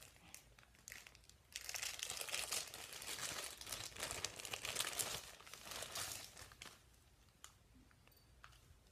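Clear plastic wrapping crinkling as it is handled and pulled off a small camera, busiest from about a second and a half in until near the end. After that come a few light clicks.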